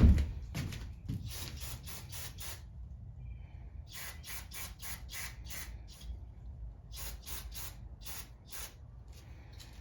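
Aerosol carburettor cleaner sprayed in three runs of short, quick hissing bursts, five or six bursts each, to blast dust off a lawn mower part. A knock right at the start.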